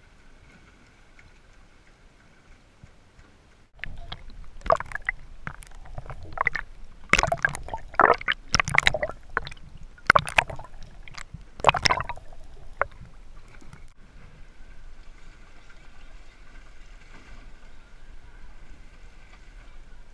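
Sea water sloshing and gurgling against a camera dipped below the surface, with a burst of loud, irregular splashes and knocks from about 4 to 13 seconds in, settling afterwards into a steady faint wash.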